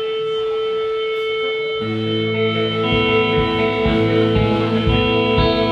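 Post-rock band music: a held guitar note rings alone, lower bass notes join about two seconds in, and a drum beat starts about a second later.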